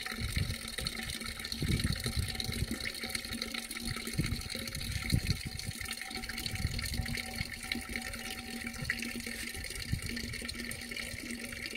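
A small spring's stream of water pouring steadily, with occasional low rumbles underneath.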